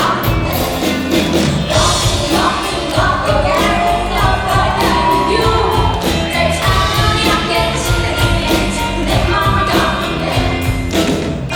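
Student rock band playing live: drum kit keeping a steady beat under guitars and bass, with a sung melody line over it.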